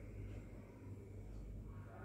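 Quiet room tone with a low steady hum and a man's faint, slow breathing during a pranayama breathing exercise.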